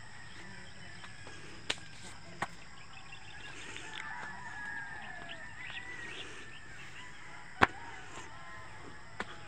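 Rural morning ambience: a rooster crowing in the distance and other birds calling over a steady high insect drone, with a few sharp clicks, the loudest about three-quarters of the way through.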